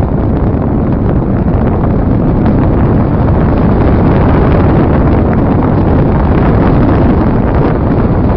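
Loud, steady wind rush buffeting the microphone of a phone carried aboard an RC slope-soaring glider in flight.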